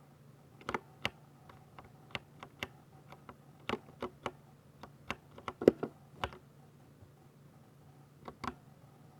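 Typing on a 60% mechanical keyboard with silver switches: uneven runs of sharp keystroke clicks, with one heavier stroke about halfway through. The typing pauses for about two seconds and resumes briefly near the end.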